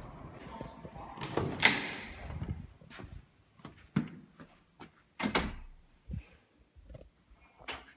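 A few separate knocks and clatters, the loudest about one and a half seconds in, over background noise that fades in the first two seconds.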